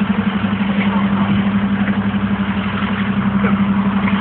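An engine idling: a steady low hum with a fast, even throb.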